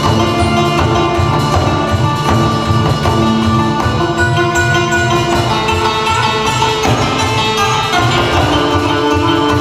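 Vietnamese traditional instrumental ensemble playing: a đàn tranh zither and a plucked lute carry the melody over a steady, fast hand-drum beat.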